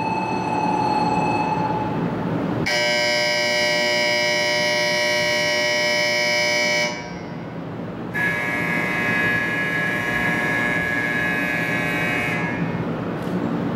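Shinkansen departure warning signal at the platform: two long steady tones, each about four seconds, with a gap of about a second between them, then a steady rushing noise of the train near the end.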